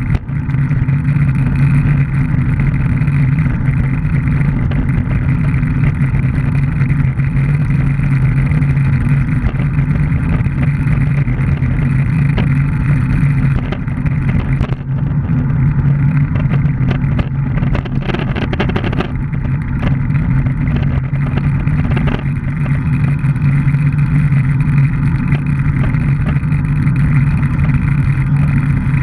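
Steady rushing noise of a handbike at speed, heard through a camera mounted on the bike: wind on the microphone with the hum of tyres and chain drive on asphalt. A few short clicks and knocks come about two-thirds of the way through.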